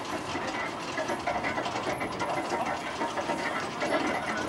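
Horse-driven threshing machine running, with a steady rattling clatter from the drum and drive as sheaves of corn are fed in.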